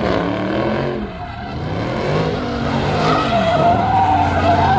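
Dodge Charger doing donuts: the engine revs up and down again and again as the rear tires spin and squeal. The high tire squeal grows louder over the last couple of seconds.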